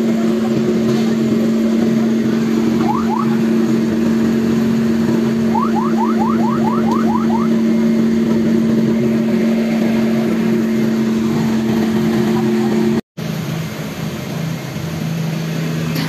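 A fire truck's engine running at a steady pitch. Two short rising chirps come about three seconds in, and a quick run of about eight more around six to seven seconds in. Near the end the sound cuts out for a moment and comes back as a lower, steadier hum.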